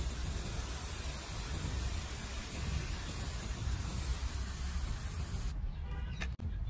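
Spray nozzle misting water onto a potted seedling: a steady hiss that cuts off near the end.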